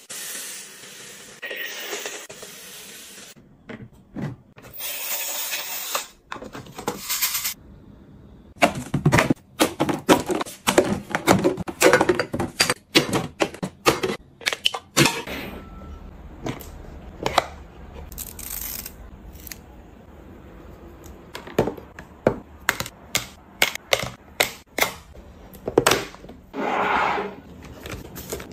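A series of household handling sounds. Dry grain hisses as it pours into a clear plastic dispenser, then a dense run of sharp clacks and knocks from plastic and glass bottles and containers. Plastic packets of wet wipes rustle near the end.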